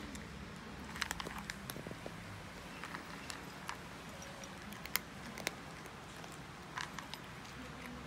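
A cat crunching small dry kibble treats, with irregular sharp crunches and a few louder bites.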